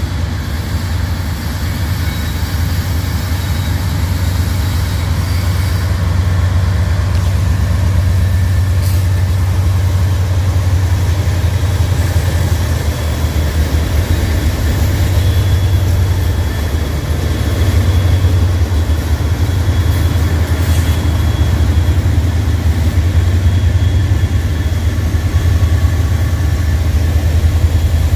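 Norfolk Southern GE AC44C6M diesel-electric locomotives, with their 16-cylinder GE FDL diesel engines, passing slowly at close range with a steady low drone as they pull the stalled train.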